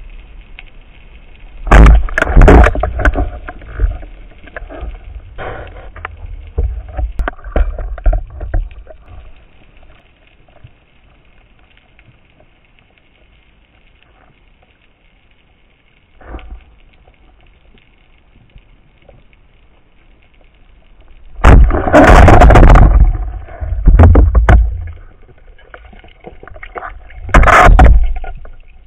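Underwater noise picked up by a camera mounted on a speargun: a faint steady water hiss broken by loud, muffled rushes and knocks of the diver moving, with a cluster about two seconds in and a longer loud stretch from about 21 to 25 seconds in, then another near the end.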